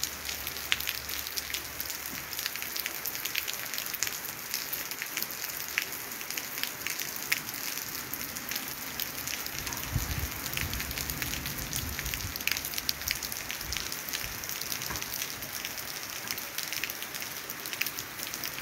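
Calm, light rain falling steadily on a wet asphalt street and tree leaves, with many individual drops ticking. A brief low rumble about ten seconds in.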